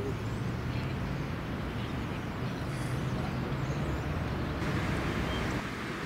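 Outdoor urban ambience at a construction site: a steady low hum of distant traffic and machinery, with a hiss that swells for about a second near the end.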